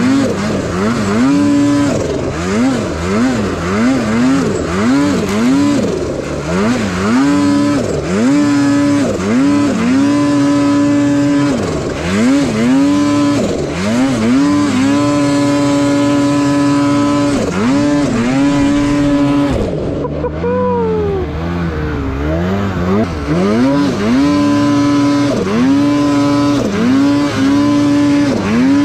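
Ski-Doo snowmobile's two-stroke engine revved hard while the sled ploughs through deep powder, its pitch swinging up and down again and again with the throttle and held high for stretches. About two-thirds of the way through, the revs drop and the sound goes briefly muffled before climbing again.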